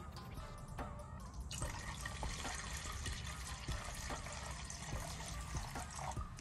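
Urethane paint reducer pouring in a thin stream from a gallon can into a plastic mixing cup of silver basecoat. The pour starts about one and a half seconds in and runs steadily until near the end.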